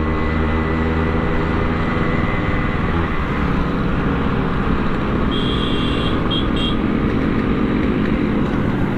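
Motorcycle engine running steadily while riding, mixed with road and wind noise; its pitch eases down slightly over the first few seconds. A few short high-pitched beeps sound between about five and seven seconds in.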